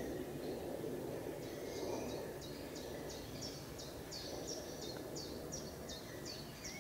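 A run of short high chirps, about three a second, starting about a second and a half in and going on to near the end, over a steady low background rumble.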